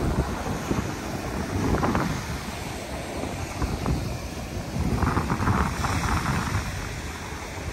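Wind buffeting the microphone over the wash of ocean surf breaking on the beach, with a deep rumble that swells a little about five seconds in.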